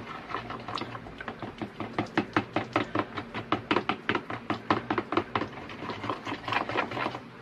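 Thick peanut sauce being stirred briskly in a white bowl, the utensil knocking and scraping against the bowl about four to five times a second.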